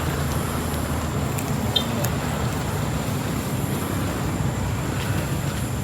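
Steady low rumble of street traffic, with a faint click a little under two seconds in.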